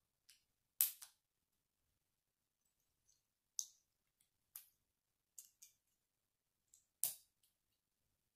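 Plastic Lego bricks clicking and snapping together as a small model is built by hand. There are about ten sharp, irregular clicks, the loudest about a second in and another near the end.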